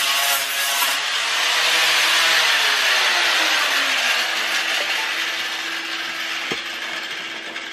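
Angle grinder grinding the bare steel of a pickup's cab corner and rocker panel, a harsh hiss that eases off about a second in. The motor then spins down with a falling whine, and the hiss fades out.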